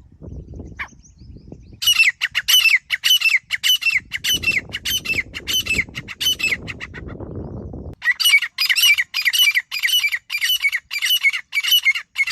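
Grey francolin giving its harsh, rapidly repeated call, about two to three notes a second, in two long runs with a short break between them. A low rumble sits under part of it.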